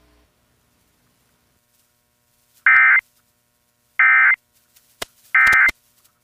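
Emergency Alert System end-of-message signal: three identical short, loud bursts of digital data tones about a second and a half apart, the SAME code that marks the alert as over. A few sharp clicks come near the end.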